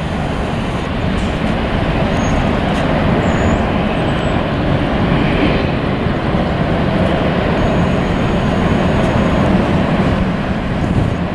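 Boeing 737-800's twin CFM56-7B turbofan engines at takeoff thrust, a loud, steady roar with a deep rumble underneath, as the jet rolls, rotates and lifts off.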